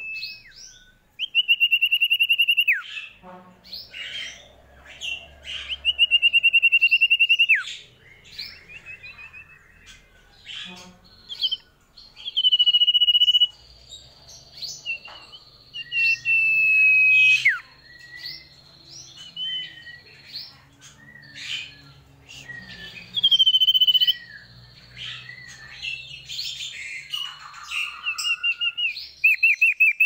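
Common iora (cipoh/sirtu) singing: long, drawn-out whistled notes, each ending in a quick downward slur, repeated every few seconds between short chirps, with a fast trill near the end.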